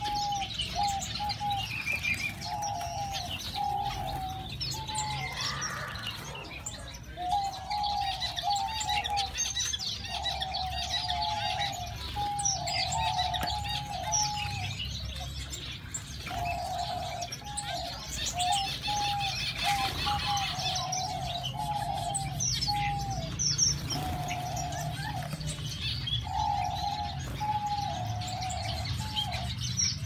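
Small aviary finches chirping and twittering, with a lower call of short repeated notes coming in phrases again and again throughout, over a steady low hum.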